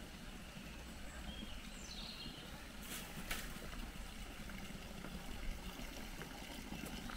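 Faint outdoor ambience: a steady low rumble, with a short high falling chirp about two seconds in and two sharp clicks about three seconds in.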